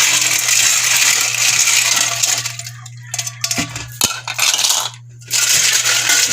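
Sea snail shells clattering and clinking against each other in a basin as they are rubbed and washed by hand, in dense stretches with short pauses about three and five seconds in. A steady low hum sits underneath.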